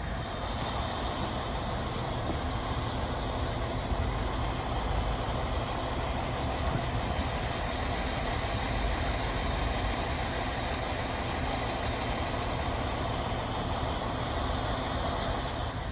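Fire engine idling: a steady engine rumble that holds even throughout.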